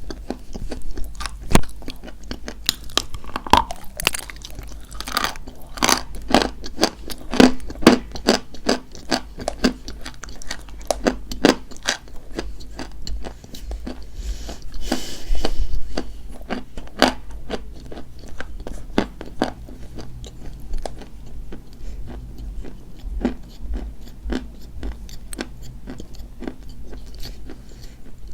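Dry white chalk being bitten and chewed close to the microphone: many crisp crunches, densest in the first half and thinning out later, with a brief hiss about halfway through.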